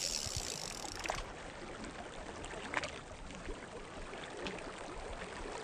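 Water lapping softly, with a few faint clicks scattered through it.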